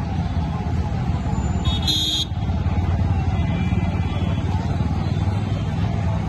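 Busy road traffic: motorcycles and cars running past in a steady rumble, with one short horn beep about two seconds in.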